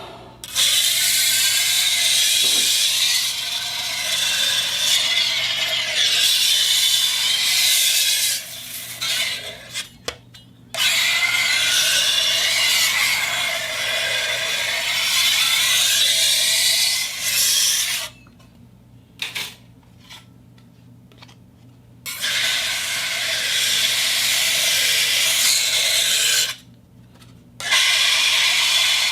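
Scraping and rubbing on a metal plate turning on a turntable, a harsh hiss-like rasp with a slight wavering. It comes in four long stretches of several seconds each, with short pauses between.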